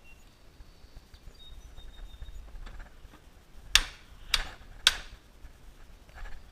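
Three sharp clicks or knocks in quick succession, a little over half a second apart, near the middle, with faint thin high tones early on.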